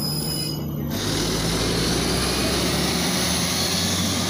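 A steady low hum, then from about a second in the YaMZ-53624 gas engine of a LiAZ 5292.67 compressed-natural-gas city bus running at the kerb, a low hum under a broad, even hiss.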